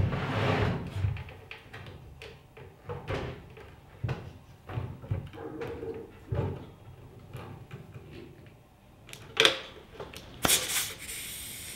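Hands fitting pneumatic hoses and an air filter-regulator to a plasma cutter: scattered clicks, knocks and rustles of plastic and metal fittings. A sharp knock comes near the end, followed by a short burst of hiss as the air hose is coupled.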